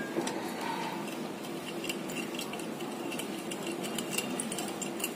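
Metal spoon stirring sugar into milk in a glass bowl, with many light, irregular clinks and scrapes of the spoon against the glass.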